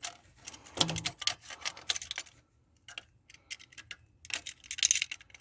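Irregular metal clicks and clinks from hand tools working on a broken stud, in short clusters with brief pauses between them.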